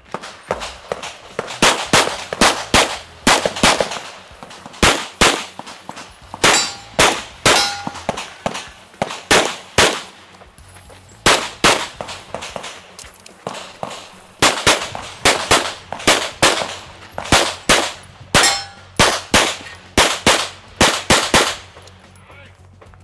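Handgun fired rapidly through a practical-shooting stage run: dozens of shots in quick strings, many in fast pairs, with short pauses between shooting positions, the last shot near the end. A few hits leave a short metallic ring, typical of steel targets being struck.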